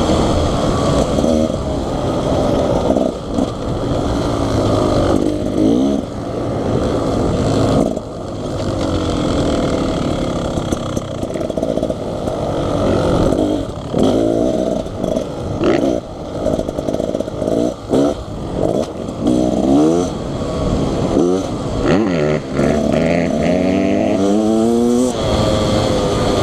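Beta Xtrainer 300 two-stroke dirt bike engine under way on a trail, its pitch climbing and dropping again and again with throttle and gear changes.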